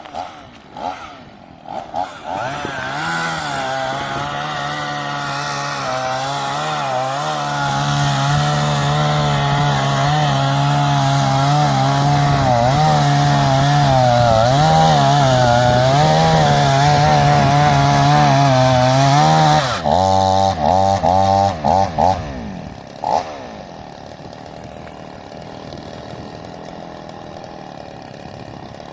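Two-stroke chainsaw running at full throttle while cutting logs, its pitch dipping and recovering as the chain bites into the wood. About twenty seconds in it drops into a choppy, stuttering spell, then the sound falls away to a much quieter steady running.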